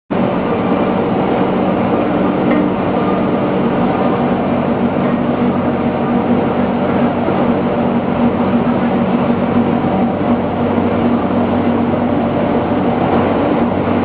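A vertical aluminum melting furnace and its plant in operation, giving a loud, steady industrial drone with a few low humming tones held throughout.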